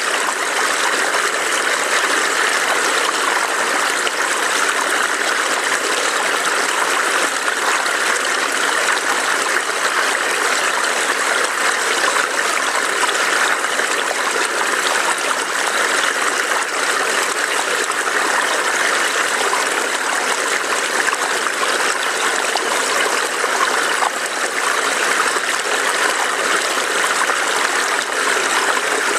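A small forest stream burbling steadily over rocks, a constant rushing water sound.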